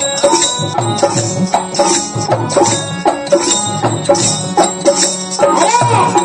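Instrumental interlude of a folk devotional bhajan: a drum keeps a steady quick beat under sustained instrument notes.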